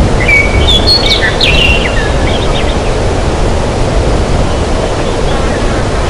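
Forest ambience: a steady low rushing background, with a flurry of short chirps and whistled notes from birds in the first two or three seconds.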